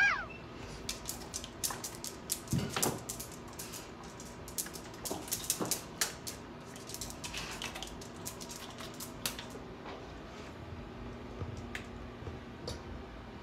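A dog crunching raw celery sticks: a quick run of crisp snapping crunches that thins out after about nine seconds. A short falling whistle-like tone sounds right at the start.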